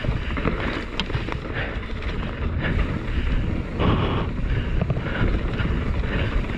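Wind buffeting an action camera's microphone on a mountain bike descending a dirt trail, with the tyres rolling over dirt and scattered sharp clicks and knocks from the bike rattling over bumps. The rush swells briefly about four seconds in.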